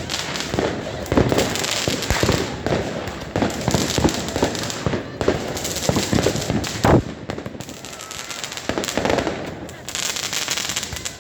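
Fireworks going off in a dense, continuous barrage of bangs and crackles, with one loudest bang about seven seconds in.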